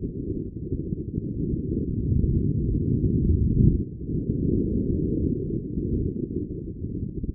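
Muffled low rumble of wind buffeting the microphone aboard a sailing yacht under way, swelling in the middle and dipping briefly about four seconds in.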